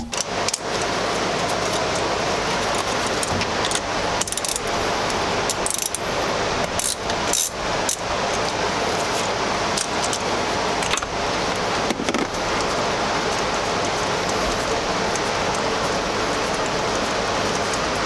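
Metal hand tools clinking and clicking on the battery's positive terminal as a wrench loosens it, a dozen or so scattered sharp clicks over a steady hiss.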